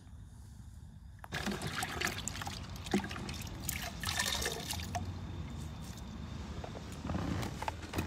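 Water sloshing and trickling in a bucket as a hand dunks and squeezes out a sponge, starting about a second in.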